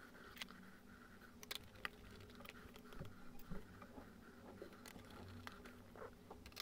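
Faint room tone with scattered small, sharp clicks and ticks at irregular intervals.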